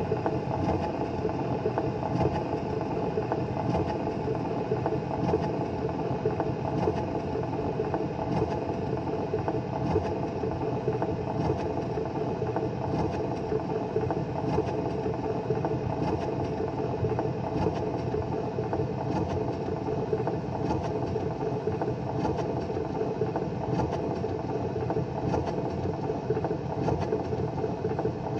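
Columbia wind-up gramophone running, its steel needle tracking a spinning shellac 78 record: a steady groove hiss and rumble with faint regular ticks, and no music.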